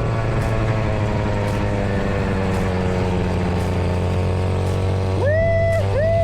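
Truck engine running with a steady low drone and a faint tick about once a second. About five seconds in, a horn sounds twice, each blast rising in pitch as it starts; the second is longer and falls away at its end.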